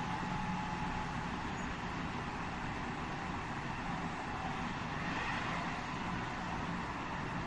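Inside a JR West 207 series 1000 electric train car (KuMoHa 207-1037) running at speed: steady rumble of wheels on rail, with faint whining tones that change, one fading about a second in and a higher one coming in about five seconds in.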